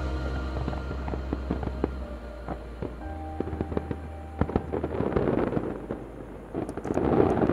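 Many rapid, irregular pops and cracks over music with held low notes, growing into a louder, denser burst near the end.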